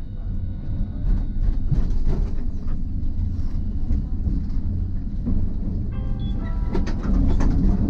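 Hiroshima Electric Railway type 1000 tram running on street track, heard from inside the front of the car: a steady low rumble of wheels and motors with irregular knocks from the rails. About six seconds in, a high ringing tone comes in over the rumble.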